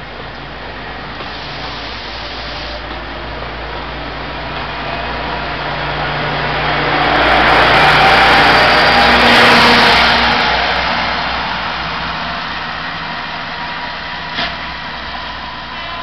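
Alishan Forest Railway diesel train pulling out: the cars roll past and the red diesel locomotive's engine runs close by, the sound building to its loudest about eight to ten seconds in as the locomotive passes, then fading as the train moves away. A brief click comes near the end.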